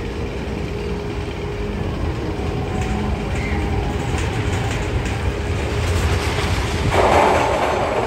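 Magnum XL 200 roller coaster train rumbling and clattering along its track, growing slowly louder, with a loud rushing burst about seven seconds in.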